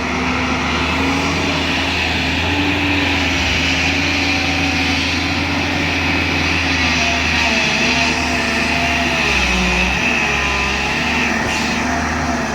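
JCB 205 LC tracked excavator's diesel engine running steadily under working load, its pitch wavering a little as the hydraulics work.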